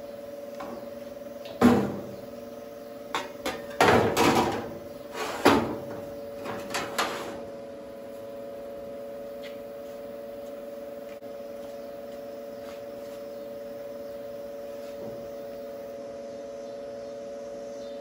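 Sheet-metal repair piece being handled and held up against the body to be marked: a few seconds of clattering knocks and scrapes. After that only a steady electrical hum.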